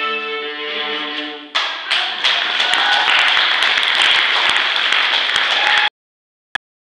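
Four violas holding a final chord for about a second and a half, then audience applause that cuts off suddenly near the end.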